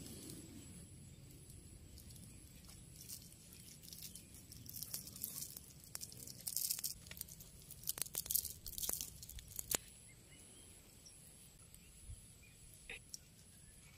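Light crunching and crackling of dry, charred crop stalks and leaves underfoot as a barefoot person steps about on a burnt garden bed, densest in the middle and thinning out toward the end.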